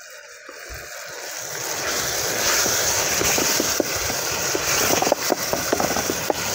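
Tomato and spice paste sizzling in a metal pot over a wood fire as it is stirred with a wooden spoon. The hiss builds over the first two seconds, with many small pops after.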